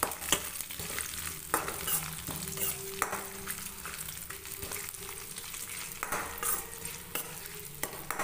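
Cashews, black peppercorns and whole spices sizzling in hot oil in a steel kadai, with a metal ladle stirring and scraping the pan in irregular strokes.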